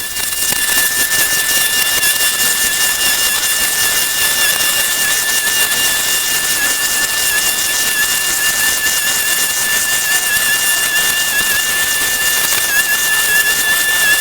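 Steady hissing noise with a high whistling tone held over it, the pitch wavering slightly near the end.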